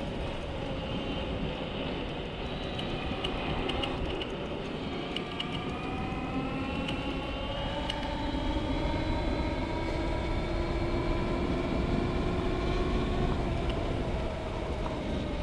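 Dualtron Spider electric scooter under way at about 30 km/h: the whine of its hub motors, several pitches at once that glide slowly upward partway through, over low wind rumble on the microphone and tyre noise on the asphalt.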